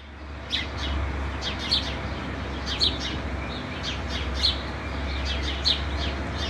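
Small birds chirping: short, sharp calls repeated in little clusters over a steady low rumble.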